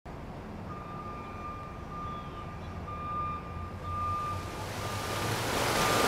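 Sound effects for an animated intro: a low rumble with a high tone repeating in short dashes, under a rushing noise like water that swells steadily louder toward the end.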